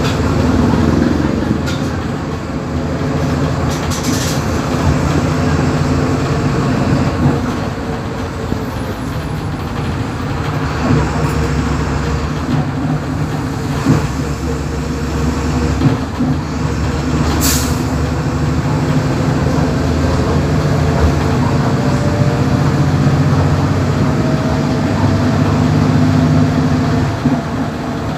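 Volksbus 17.230 EOD bus's diesel engine running, its note rising and falling with a whine that climbs near the end. There is a short sharp hiss about two-thirds of the way through.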